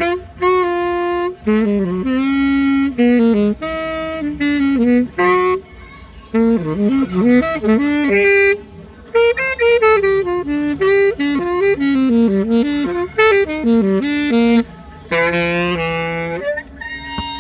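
Solo saxophone played live: a melody in short phrases with brief pauses, quick runs of notes in the middle, and a long held note near the end.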